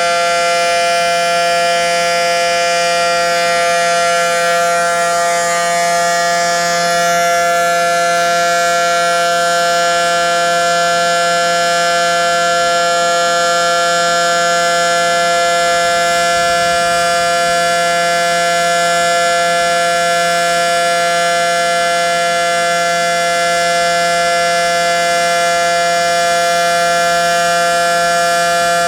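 Federal Signal SD-10 outdoor warning siren sounding a steady tone during a test, holding its pitch without rising or falling.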